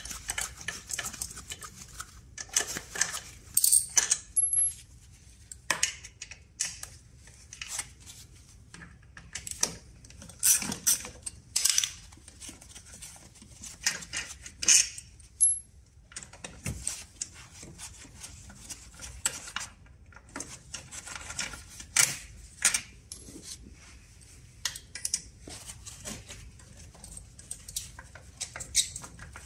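Metal hand tools and loose bolts clinking and clattering in irregular clicks and rattles as the screws and cover of a four-stroke scooter's transmission (CVT) case are removed.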